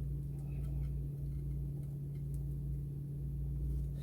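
A steady low hum with a few faint, light clicks over it.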